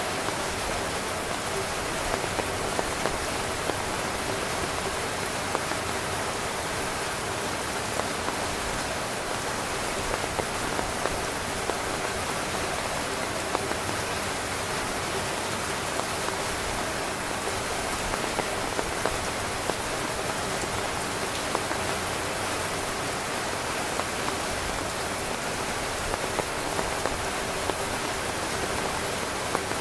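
Heavy rain pattering on a tent, a steady dense hiss with frequent louder individual drop hits.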